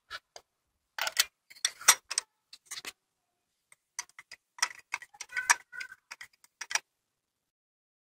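Irregular clicking of a ratchet and the metal clink of a spark plug socket on a long extension working in a car engine's spark plug well, stopping a second or so before the end.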